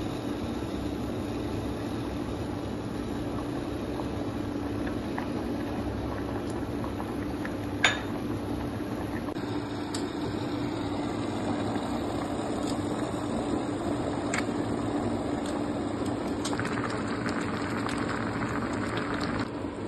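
Sugar syrup boiling in a steel pan with rasgulla balls cooking in it: a steady bubbling hiss over a low hum. There is one sharp tap about eight seconds in.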